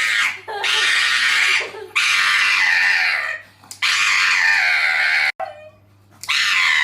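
A dog giving a string of loud, high, scream-like howls, each drawn out for a second or more and sliding down in pitch, with short breaks between them.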